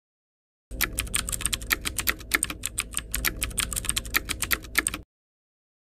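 Keyboard typing sound effect: a fast, even run of keystroke clicks, several a second, that starts under a second in and stops cleanly near the end, timed to caption text being typed out letter by letter.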